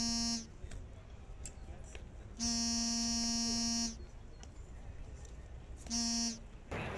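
A buzzing, steady-pitched horn blown in blasts: one ending just after the start, a long blast of about a second and a half near the middle, and a short one about six seconds in.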